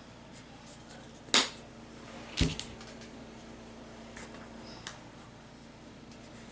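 Two sharp taps about a second apart, the second a duller knock, as small painting tools or the clay dish are handled and set down on a table, followed by a few faint ticks.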